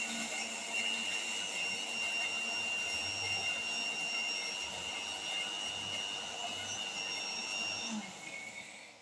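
Kitchen mixer grinder motor running steadily with a high whine over a rushing noise, then winding down near the end.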